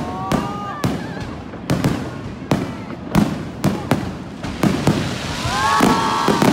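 Aerial fireworks going off in quick succession: sharp bangs and booms every half second or so, with crackling that thickens into a dense fizzing crackle near the end.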